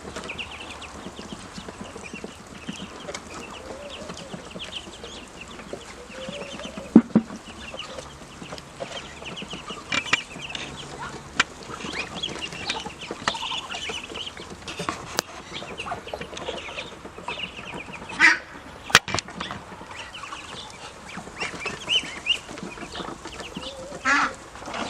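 Growing ducklings peeping over and over in short, high calls. A few sharp knocks cut in, one about a third of the way through and two close together later on.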